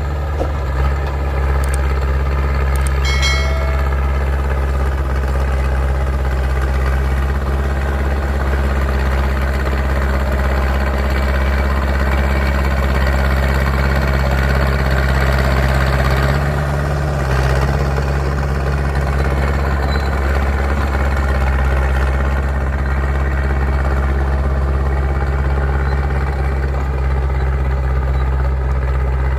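Caterpillar D3C bulldozer's diesel engine running steadily, with a short metallic ring about three seconds in and a brief change in the engine note a little past halfway.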